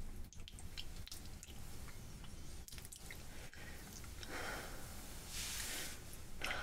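Soft, wet kissing sounds, small lip smacks and clicks scattered throughout, with a couple of breathy exhales in the second half.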